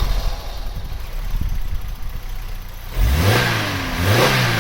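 Vauxhall Cavalier's 1.8-litre four-cylinder engine running just after starting, then revved hard about three seconds in, its pitch climbing twice. This is the test run after the injectors were refitted to cure a misfire, and it draws a cheer as it revs.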